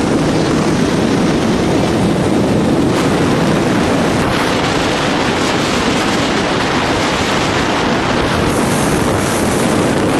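Steady wind rushing over the microphone with road noise from a vehicle moving along a highway.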